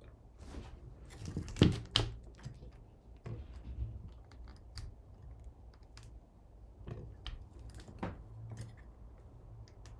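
Scattered small clicks and taps of hands handling things at a computer desk, with the two loudest knocks close together about a second and a half in, over a low steady hum.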